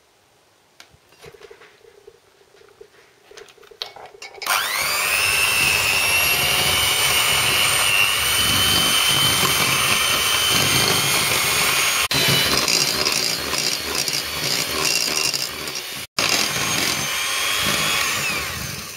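Hand-held electric mixer with twin beaters creaming butter and sugar in a ceramic bowl. The motor starts about four seconds in with a rising whine, then runs steadily, cuts out for an instant near the end, and eases off at the very end.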